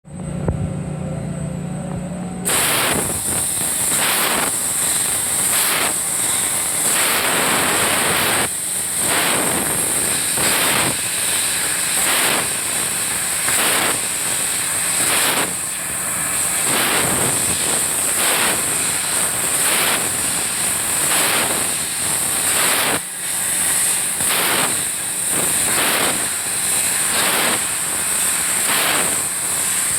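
Laser cutting machine cutting sheet-metal plate: a steady high hiss, with noisier surges about once a second. For the first couple of seconds only a low machine hum is heard before the hiss starts.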